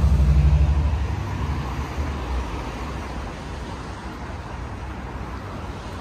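Low engine rumble of a nearby motor vehicle, loudest at the start and dying away over the first couple of seconds, leaving steady street traffic noise.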